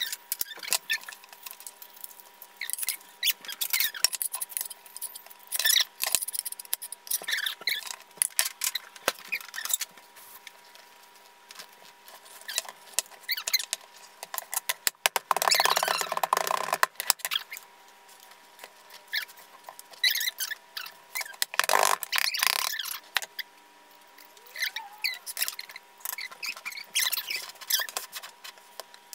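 Kitchen prep sounds from baking utensils in a metal cake pan and on a wooden cutting board: scattered scrapes, taps and short squeaks, with two longer scraping stretches around the middle, over a faint steady hum.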